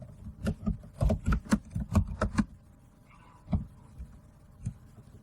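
Keystrokes on a computer keyboard: a quick run of typing for about two and a half seconds, then two single clicks.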